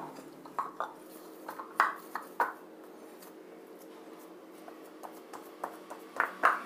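Hands pressing and patting a stiff wheat-flour poori dough into a ball in a bowl, with light taps and knocks against the bowl. The taps come in a handful during the first couple of seconds and again twice near the end, with only faint handling in between.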